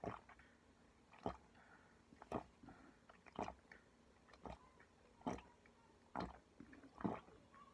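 A person gulping a drink straight from a plastic bottle, a short swallow about once a second.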